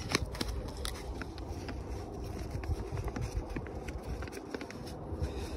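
Kraft-paper soil sample bag crinkling and crackling as it is handled and folded shut, a string of small irregular clicks over a low rumble.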